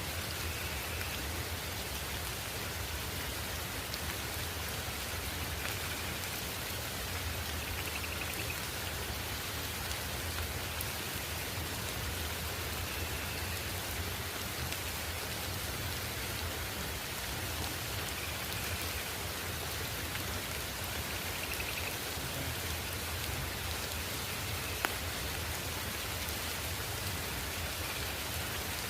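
Steady rain falling, an even hiss without pause, with faint short chirps every few seconds and a single sharp tick near the end.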